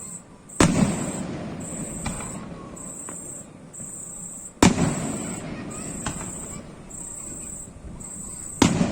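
Fireworks shells bursting overhead: three loud booms about four seconds apart, each trailing off in a rumble, with smaller pops in between.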